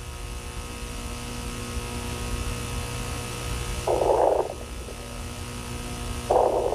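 A steady low hum, broken twice by a short, harsh buzz: once about four seconds in and again near the end.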